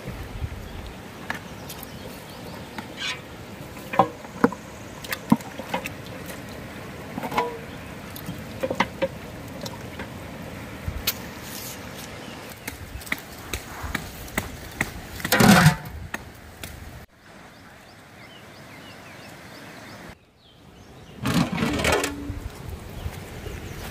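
Water sloshing and splashing in a large aluminium pot, with scattered clicks and knocks as beef trotters are washed by hand and moved about in it. The sound drops out abruptly twice near the end.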